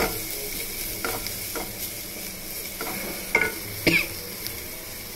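Onions and green onion stalks sizzling in oil in a stainless steel pan, stirred with a wooden spatula that scrapes and knocks against the pan about six times, the two loudest about three and four seconds in.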